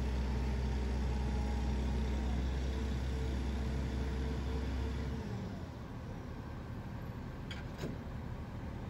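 An engine running steadily with an even hum. About five seconds in the hum drops away, leaving a lower, quieter rumble. Two light clicks come near the end.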